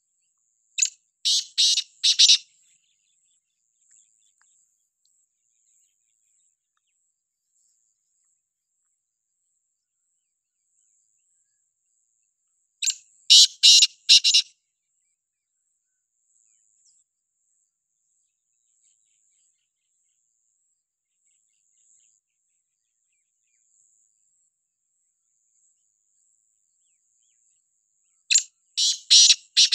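Black francolin calling three times, each call a quick run of about five notes: one near the start, one about halfway through and one at the end.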